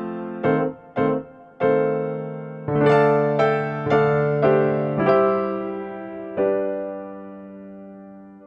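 Background electric piano music: a melody of separate struck notes, ending on a held chord that fades and then cuts off sharply.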